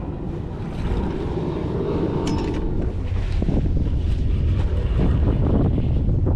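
Wind buffeting the microphone: a steady low rumble that rises slightly after about a second.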